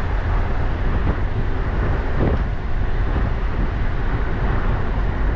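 Steady road and wind noise from a moving vehicle, a heavy low rumble with wind buffeting the microphone.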